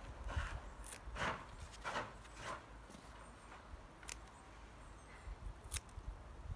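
Hand scissors snipping off the lower leaves of young bottle gourd plants: several quick cuts in the first couple of seconds, then two sharp clicks later on.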